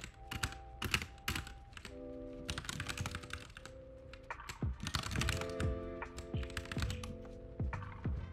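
Computer keyboard keystrokes in quick, irregular bursts as Vim commands are typed, over soft lofi background music with held chords.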